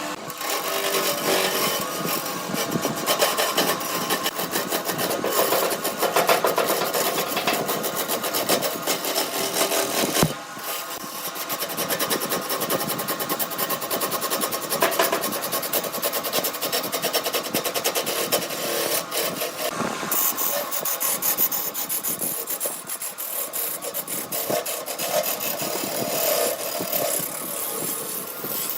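Turning tool cutting wood spinning on a wood lathe: a continuous rough scraping, briefly interrupted about ten seconds in.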